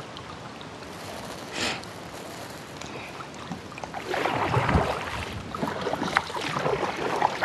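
Kayak paddle strokes splashing in moving river water, with water washing along the hull. The splashing grows louder and busier about four seconds in.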